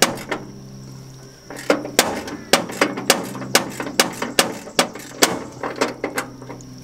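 Repeated sharp metallic knocks, roughly two a second, from adjusting the bandsaw mill's head to bring the blade back to level, over a steady low hum.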